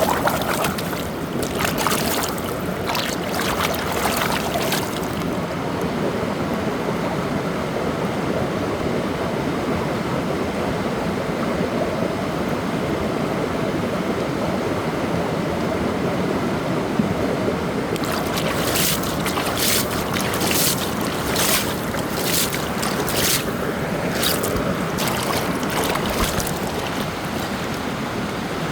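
Steady rush of flowing water, like a creek or river running over rocks. Clusters of sharp clicks and crackles come over it during the first few seconds and again from about two-thirds of the way through.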